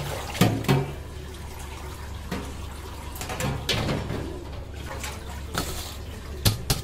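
Water sloshing and dripping as rice is rinsed in a stainless steel bowl at a sink, with a few sharp knocks of the metal bowl, loudest just after the start and near the end.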